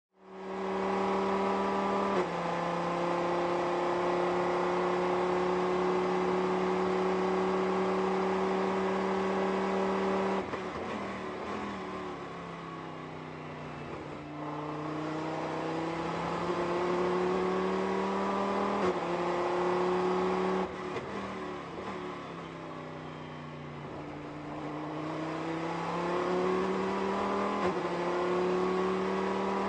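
In-car sound of an SRT Viper GTS-R race car's V10 engine at racing speed: held nearly steady under full throttle with a gear change about two seconds in. It lifts and drops in loudness with shifting pitch around the middle and again later, as the car brakes for corners, then returns to full throttle with further gear changes near the end.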